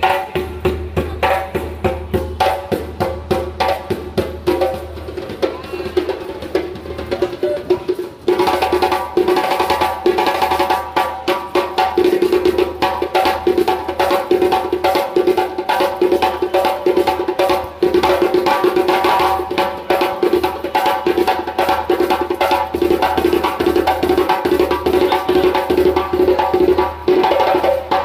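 Street percussion band drumming a fast, steady rhythm of sharp strikes, which grows fuller and louder about eight seconds in.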